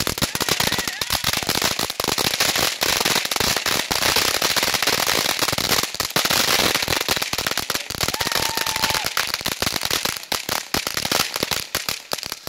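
Ground fountain fireworks spraying sparks: a steady hiss packed with rapid crackling that starts suddenly and thins out into scattered pops near the end.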